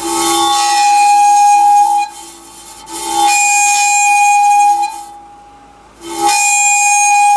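A steady, high, buzzing tone driving a cymatics vibration setup, sounded three times for about two seconds each with short gaps between.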